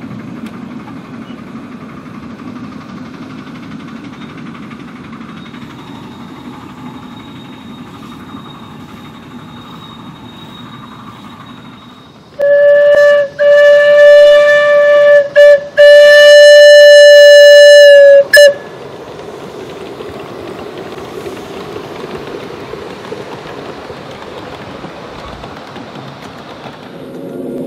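Ride-on miniature steam train rolling along the track with a steady rumble. About twelve seconds in, the locomotive's whistle blows loudly several times for about six seconds: two long blasts with short toots between them. Then the rolling rumble goes on.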